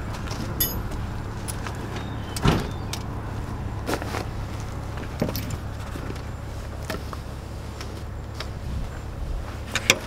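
Leather nameplate halters with brass buckles and rings clinking and rattling as they are handled and lifted off hooks. There are scattered sharp clinks, a louder knock about two and a half seconds in and a quick pair near the end, over a steady low rumble.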